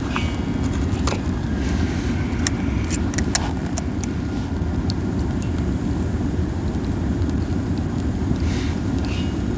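Pine cones burning in a strong campfire: a steady low roar of the flames, buffeted by wind, with a scattering of gentle crackles and pops, several of them in the first few seconds.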